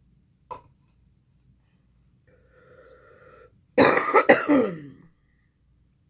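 A loud belch about four seconds in, lasting just over a second, its pitch falling as it goes. A short click comes about half a second in.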